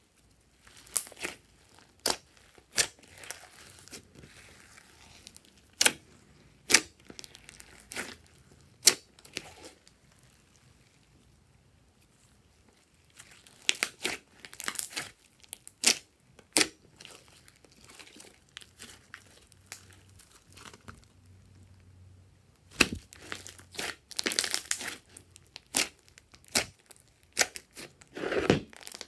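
Glossy slime mixed with foam beads being squished and kneaded by hand, giving irregular sharp clicks and crackling pops, with a lull about a third of the way in and the busiest clusters in the second half.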